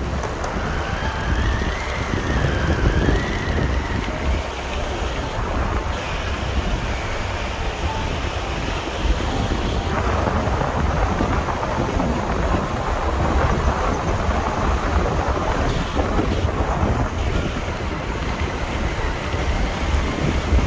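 Wind buffeting the microphone: a steady rushing noise with a heavy low rumble.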